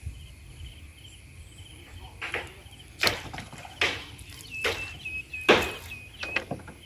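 A fishing net hauled in by hand over the side of a wooden boat: about six short splashes and knocks, the loudest a little past the middle, over a faint steady chirring of insects.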